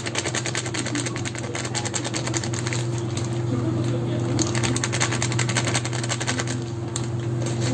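A small motor running steadily, a constant low hum with a fast, even rattling tick over it.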